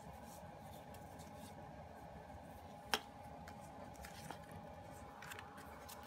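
Faint handling of a paper photobook: light rustles and a single sharp tap about three seconds in, with a couple of softer ticks after it, over a faint steady hum.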